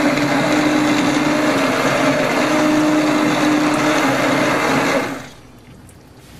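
Electric immersion blender running steadily as it purées cooked vegetables, lentils and tomatoes into a sauce. It is switched off about five seconds in.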